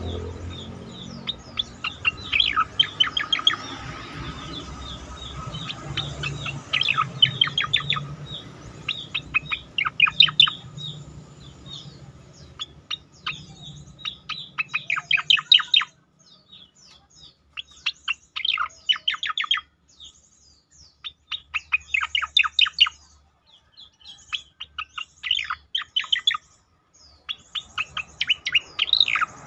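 Striated grassbird calling: rapid runs of sharp chirping notes, each run lasting a second or two and repeated after short pauses.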